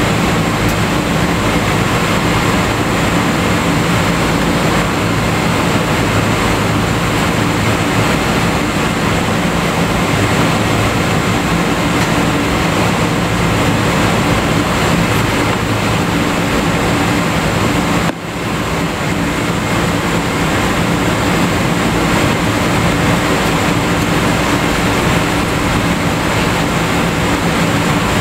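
Cabin noise of a Boeing 777-200ER taxiing: its Rolls-Royce Trent engines running at idle, with the steady rumble of the airframe and wheels rolling over the apron. The level drops briefly and recovers about two-thirds of the way through.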